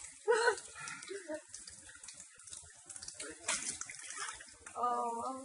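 Water running and splashing in an elephant's bathing pool, fairly quiet. A brief voice sounds near the end.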